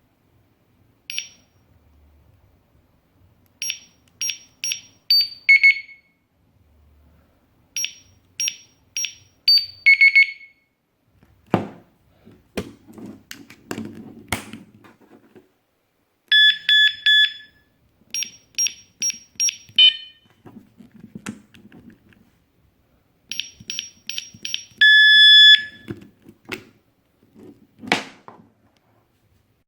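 Mito alarm padlock's electronic beeper going through its tones: runs of about four quick high beeps ending in a tone that drops in pitch, twice. Then come several knocks and clicks of the lock being handled, and two short bursts of a louder steady alarm tone with more beeps between them.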